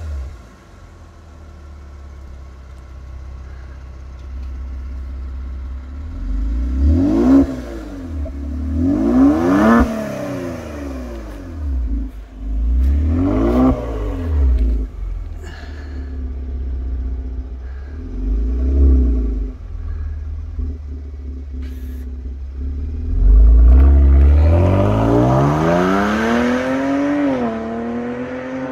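Kia Stinger GT's 3.3-litre twin-turbo V6 through a Bastuck aftermarket exhaust, idling and blipped in a series of short revs. Near the end it accelerates hard away with a long rising note, dipping briefly in pitch as it shifts up and then climbing again.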